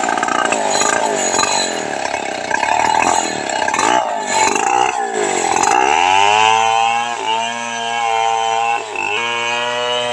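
Stihl 070 two-stroke chainsaw cutting through a large log. For about six seconds its engine pitch dips and climbs as the chain works under load. It then holds a steady high pitch.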